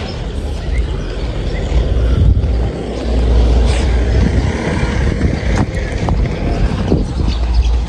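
Low wind rumble buffeting a phone microphone, with handling noise as the phone rubs against a baby's knitted blanket and a few light clicks near the end.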